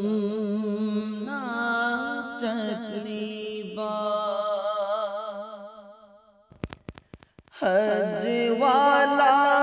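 A male voice singing a naat in long held notes with heavy vibrato. The voice fades out about six seconds in, a brief run of clicks follows, and the singing starts again near eight seconds.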